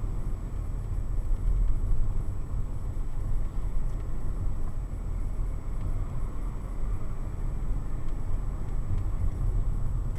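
Steady low rumble of a car's engine and tyres on the road, heard from inside the cabin.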